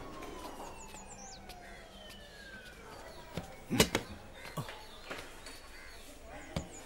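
Metal hospital stretcher trolley clanking once sharply with a short metallic ring about four seconds in, with a few lighter knocks near the end. Behind it a drawn-out tone slides slowly down in pitch, and small birds chirp.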